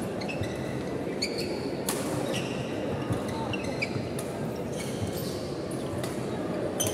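Badminton rally: several sharp racket hits on the shuttlecock about a second apart, with sneakers squeaking on the wooden court and spectators chattering in the background.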